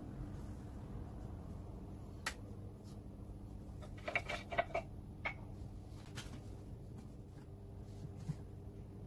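Light clicks and taps of hands working at the engine's rocker cover as the oil filler cap is taken off: a single click, then a quick cluster of clicks about four seconds in and a couple more after. A steady low hum runs underneath.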